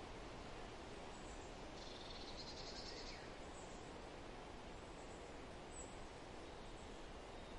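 Faint outdoor ambience: a steady low hiss with a brief high, rapid trill about two seconds in and a few faint high chirps.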